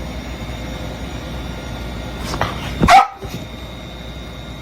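A dog barks once, short and loud, about three seconds in, over a steady background hum and hiss.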